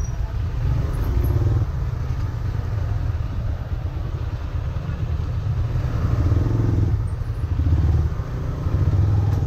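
Several motorcycle engines running at low speed close by: a steady low rumble that swells a little about six seconds in and again near the end.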